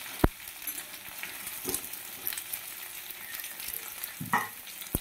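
Potato, aubergine and flat bean pieces sizzling steadily in oil in a metal wok while a metal spatula stirs them, knocking against the pan a few times with a longer scrape near the end.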